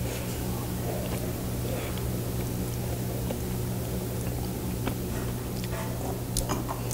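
Faint chewing and small clicks of people eating fried frog legs, over a steady low hum.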